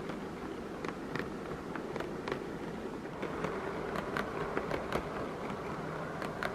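HO-scale model locomotive running on track: a steady buzzing hum with irregular light clicks, about one every half second.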